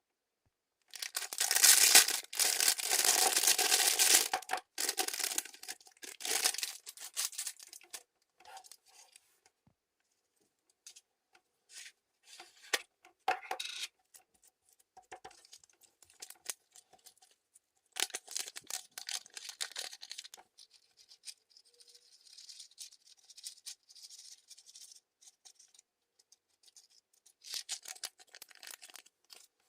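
Clear slime being handled by hand, giving wet crackling, squishing and popping sounds: a long dense stretch near the start, then scattered clicks and short bursts, with two more crackly bursts later.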